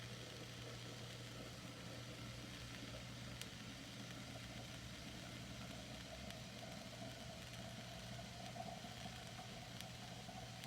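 Faint steady low hum of room tone.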